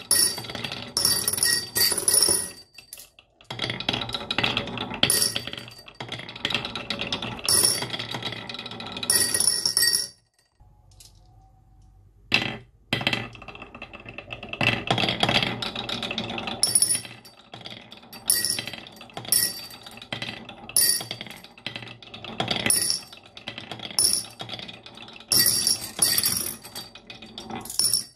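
Marbles rolling and clattering down a toy marble run, with many sharp clicks and ringing clinks; the clatter stops for about two seconds partway through, then starts again.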